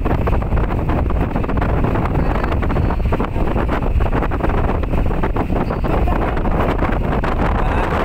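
Wind rushing over the microphone from an open car window, over the low rumble of a vehicle driving on a dirt road.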